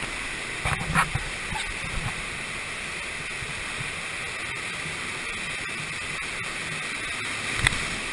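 Water rushing steadily through an enclosed tube water slide as a rider slides down, with a few bumps against the slide about a second in and near the end.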